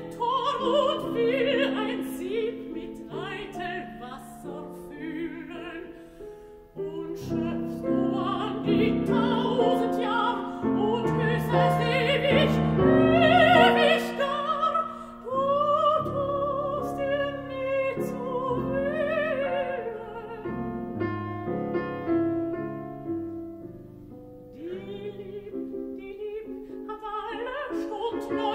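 A mezzo-soprano sings a German art song with vibrato over piano accompaniment, phrase after phrase with short breaks between them. The voice swells to its loudest about halfway through.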